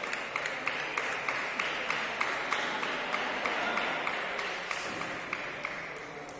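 Spectators clapping in applause, many separate hand claps over a hiss-like wash, dying away gradually, with table tennis ball strikes on bats and table as play resumes in the second half.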